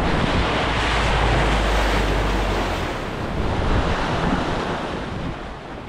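Motorboat under way: wind buffeting the microphone and water rushing along the hull, with a heavy low rumble that eases off about three seconds in.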